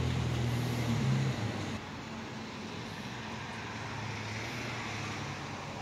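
Low steady mechanical hum with a droning tone. About two seconds in it drops abruptly to a quieter, even background noise.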